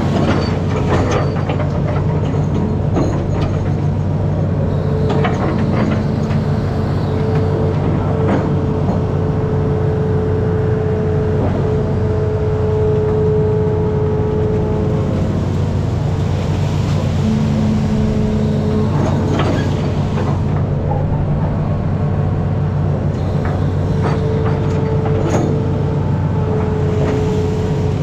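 Amphibious excavator's diesel engine running steadily, with a higher tone that comes and goes as the machine works and scattered short knocks and clanks.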